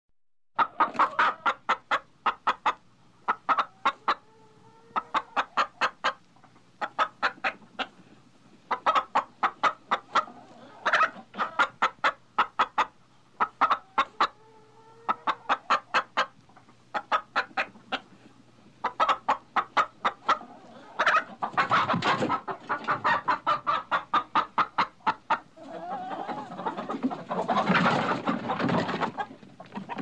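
A chicken clucking excitedly in quick runs of short clucks, with a few drawn-out calls between them. Toward the end, noisy bursts of wing flapping and feather rustling mix with the clucking.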